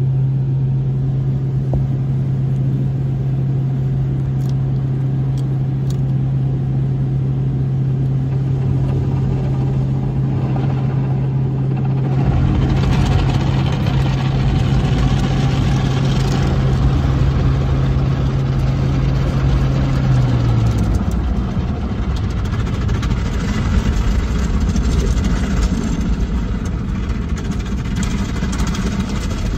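Automatic car wash heard from inside the car: a steady low hum with water spraying on the body. About twelve seconds in, louder spraying starts as foam covers the windshield. The hum stops a little past twenty seconds.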